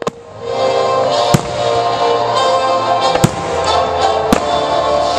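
Four sharp firework bangs, about one to two seconds apart, over music playing steadily.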